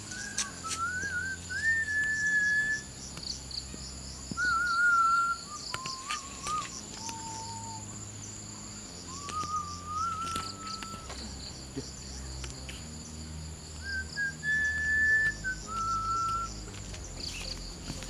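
Someone whistling a slow tune of held, wavering notes, with pauses between phrases, over a steady high drone of insects.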